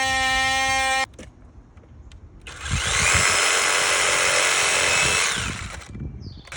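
Cordless compact reciprocating saw running with a steady whine that cuts off abruptly about a second in. After a short pause the saw cuts into wood again for about three seconds, the noise tapering off near the end.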